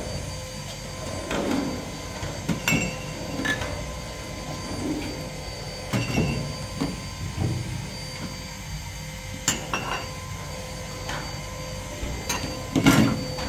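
Irregular knocks and clinks a few seconds apart, the loudest near the end, over a faint steady hum.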